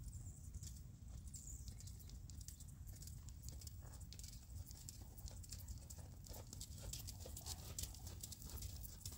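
Horse's hooves stepping on arena sand, walking and then picking up into a trot, over a low steady rumble.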